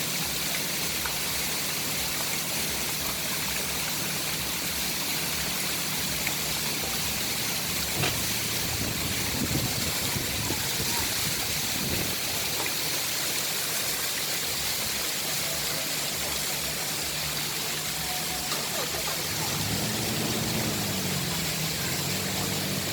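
Steady rushing of a river flowing below a waterfall. About twenty seconds in, a low pitched hum that bends slightly in pitch joins it.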